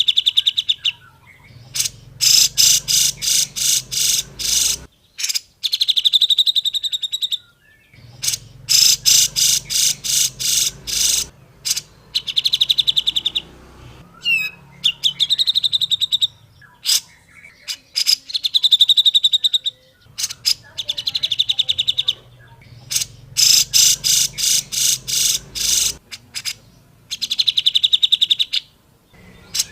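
Cucak jenggot (grey-cheeked bulbul) singing: phrase after phrase of rapid, chattering notes, each phrase a second or three long, repeating after short pauses.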